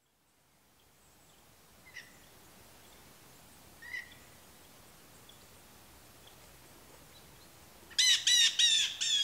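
Quiet forest background with two faint, short bird chirps. Near the end a bird gives four loud, harsh calls in quick succession.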